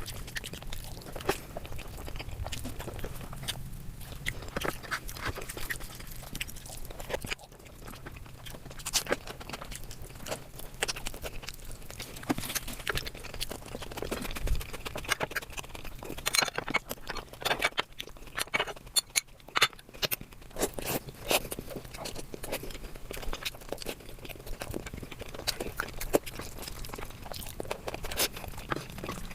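Close-miked eating: a person biting and chewing crunchy food, a steady run of sharp crunching clicks that grows denser about halfway through.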